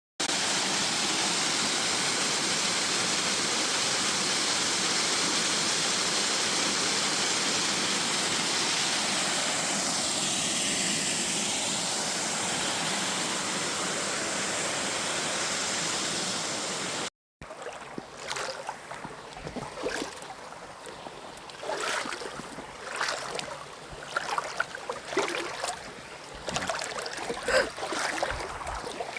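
Waterfall rushing, a loud, steady wash of water. After a cut about 17 seconds in it gives way to quieter, uneven running water with scattered knocks.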